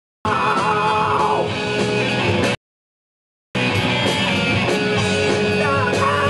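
Live rock band playing, electric guitars over drums and bass. The sound cuts out completely right at the start and again for about a second in the middle, gaps in the recording.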